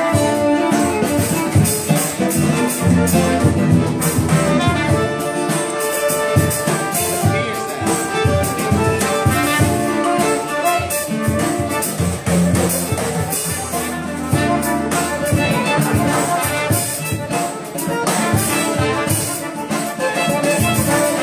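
Live band playing an acoustic tune: piano accordion, violin and acoustic guitar over a drum kit, with frequent drum hits.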